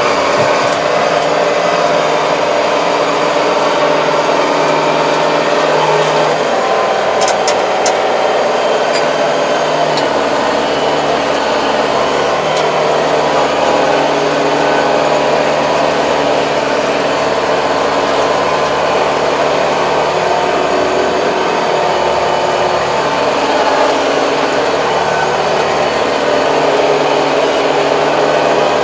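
Farm tractor's diesel engine running steadily, heard from inside the cab as it drives across a tilled field. A deeper drone joins about ten seconds in.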